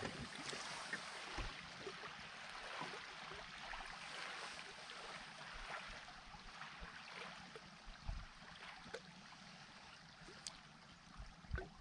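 Faint lapping of small waves against a fishing boat's hull, a steady hiss of water, with a few soft knocks.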